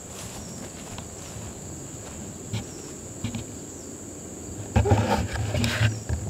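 Insects, crickets or similar, keeping up a steady high-pitched drone. From about five seconds in, a louder low rumbling noise on the microphone joins it.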